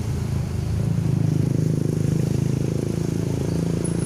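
Steady low rumble of a running motor engine, rising slightly about a second in.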